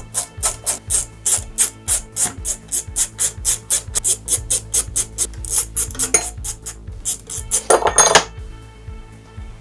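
Ratcheting hand screwdriver clicking at about four clicks a second as case screws are backed out, stopping about six seconds in. A brief, louder metal clatter follows near the end, over quiet background music.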